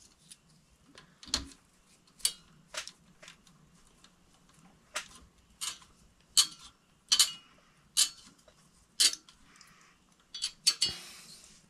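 Irregular sharp clicks and scrapes of stiff 12-gauge wires being bent and twisted together with plastic twist-on wire connectors in a metal ceiling junction box.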